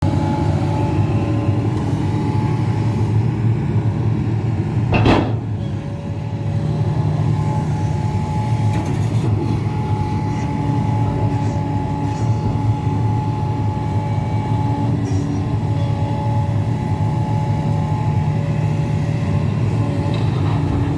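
Hidromek HMK 390LC excavator's diesel engine running steadily under load, a low drone with a steady whine over it. About five seconds in there is one sharp loud bang.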